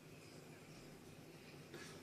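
Near silence: room tone, with one faint brief noise near the end.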